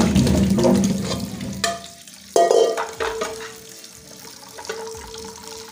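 Peeled matooke bananas poured into a stainless steel sink, tumbling and knocking against the metal, loudest in the first second and a half, with another clatter about two and a half seconds in. Tap water runs over them throughout, with a faint steady hum under it.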